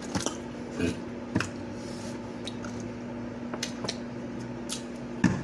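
Close-up eating sounds of someone eating fried seafood with their hands: chewing and mouth smacks with sharp clicks a handful of times, over the steady low hum of an electric fan.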